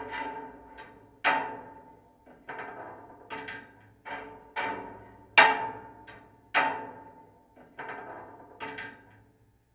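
Sharp knocks on an old footbridge, about a dozen at an uneven pace. Each rings on with a held hum and echo that dies away over about a second. The loudest comes about halfway through.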